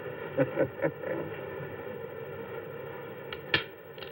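Gunshots on an old black-and-white film's soundtrack: a steady hum underneath, a couple of short sounds just under a second in, then two or three sharp shots in the last second, the loudest about three and a half seconds in.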